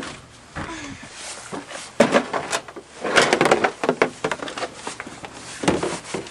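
Clatter and knocks of a house door being handled as people move through the doorway. The loudest knocks come about two seconds in and around three seconds in, with coat rustling between.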